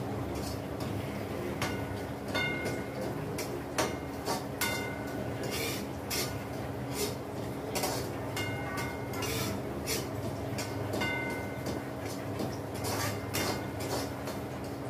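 A spoon scraping and knocking against a metal kadhai while semolina is stirred and roasted in ghee. Repeated irregular clinks, many with a short metallic ring, over a steady low rumble.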